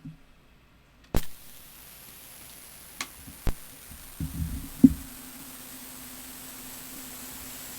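Cassette player started: a sharp clunk of the play key about a second in, then steady tape hiss as the tape runs. A couple of clicks and a short run of knocks follow, and a steady low hum sets in about five seconds in.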